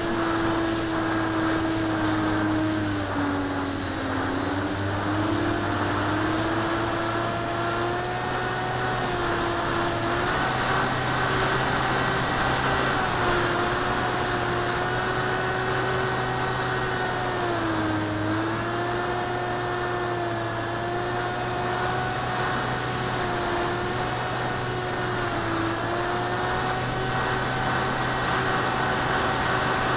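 ParkZone Icon A5 RC plane's electric motor and propeller whining steadily as heard from its onboard camera, the pitch dipping briefly a few times.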